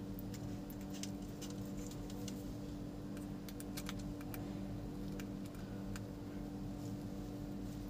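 Faint, scattered clicks and ticks of a small screwdriver and a plastic bulb holder being handled as a wire is fastened under the holder's terminal screw, with a few clicks close together about three to four seconds in. A steady low hum runs underneath.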